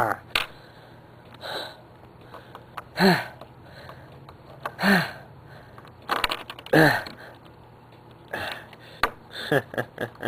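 A person's voice making three short vocal sounds about two seconds apart, each falling in pitch, followed by a quick run of short sounds near the end.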